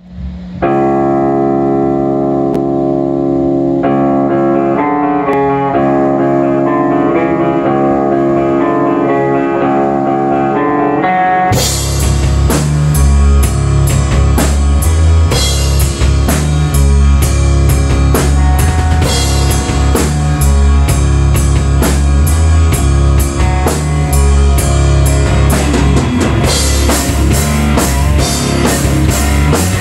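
Electric guitar playing ringing chords alone for about the first eleven seconds. Then a drum kit with bass drum and cymbals comes in, and guitar and drums play rock together loudly.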